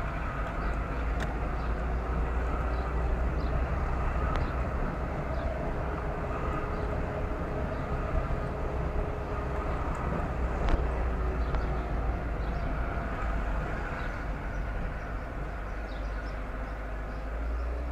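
Car driving along, a steady low rumble of engine and tyre noise, with a single sharp knock about eleven seconds in.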